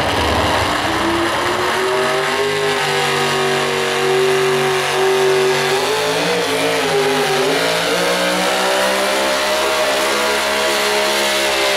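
Modified 4x4 pulling truck's engine running at full throttle while dragging a weight-transfer sled, pitch held high and steady, dipping and wavering briefly about six seconds in before climbing again.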